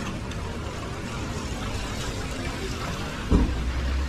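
Steady hiss of rain and water on a wet city street. About three seconds in comes a single low thump, followed by a steady low hum.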